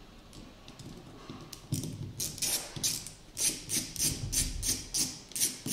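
Screwdriver working the screws out of a Porsche 550 Spyder's electric fuel pump housing: a run of short clicks, about three or four a second, starting a little under two seconds in.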